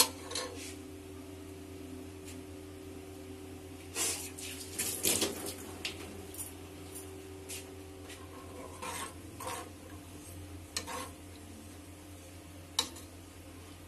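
Steel ladle scraping and knocking against an aluminium pot while stirring browned onions in oil. A cluster of louder scrapes and clinks comes about four to five seconds in, and a single sharp knock near the end. A steady low hum runs underneath.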